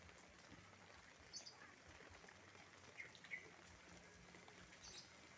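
Faint, steady patter of light rain, with a few short, high bird chirps.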